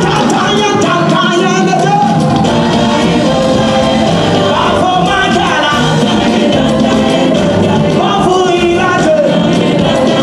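Live gospel music: singers and a backing choir over a live band, loud and continuous.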